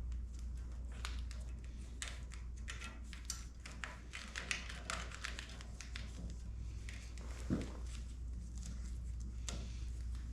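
Light taps, clicks and rustling as motorcycle control wires are handled and pushed through the handlebars, over a steady low hum.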